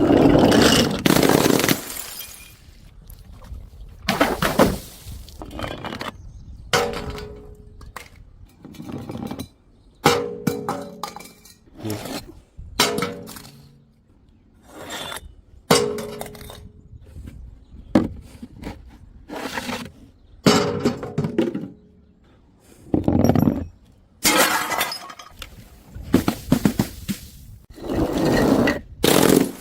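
Glass bottles thrown onto stairs, one after another: repeated clinks and knocks as they hit and bounce on the steps, some ringing briefly, with bottles shattering.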